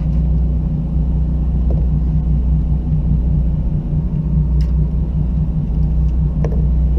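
Fishing boat's engine running steadily, a low, constant hum, with a few light clicks of hooks and lures being handled.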